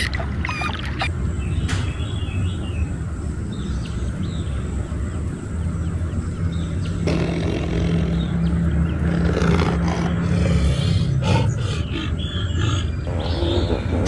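Dolphin clicks and short whistles, then from about seven seconds in a tiger growling low and steady.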